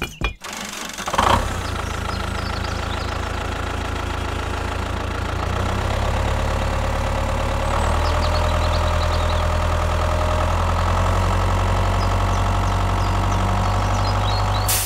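Tractor engine running steadily with a low pulsing beat. It comes in about a second in and gets louder around six and again around eight seconds in.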